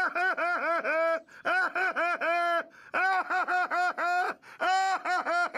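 A cartoon dog character's voice laughing in four quick runs of short, same-pitched syllables, about five to a run, with brief pauses between runs.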